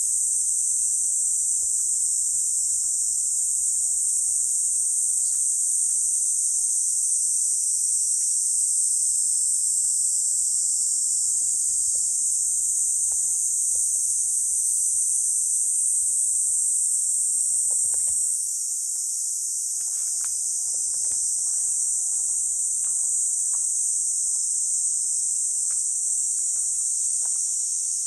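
Cicadas in a dense chorus: a continuous, steady, high-pitched shrill drone that drops slightly in level about two-thirds of the way through.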